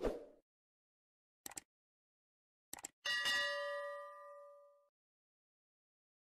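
Subscribe-button animation sound effects: a short burst at the start, two pairs of quick clicks, then a bright notification-bell ding of several tones that rings out and fades over nearly two seconds.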